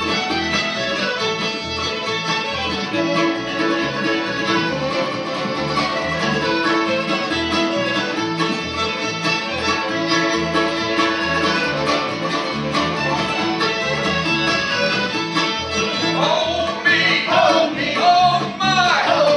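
Live string band playing a fiddle tune, with button accordion to the fore over fiddle, mandolin, acoustic guitars and bass, keeping a steady beat.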